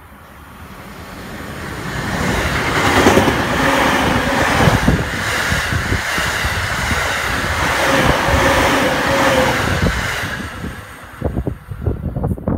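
A Takasaki Line electric commuter train passes close at speed: its rumble and rail noise build up, hold loud for about eight seconds, then fade. Wind from its wake buffets the microphone near the end.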